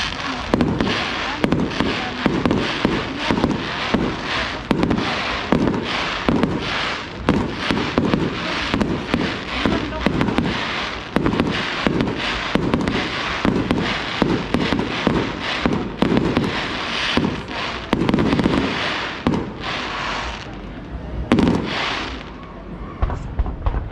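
Fireworks display: a rapid, continuous series of shell bursts and crackling, about two bangs a second, with a brief lull near the end and the bursts thinning out.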